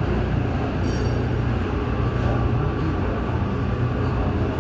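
Steady low rumble of a Boeing 737 MAX 8 jet airliner and its tug during pushback on the apron, without breaks or changes.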